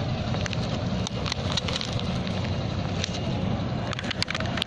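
Steady low rumble with scattered crackles and clicks: handling noise from a phone carried by someone walking.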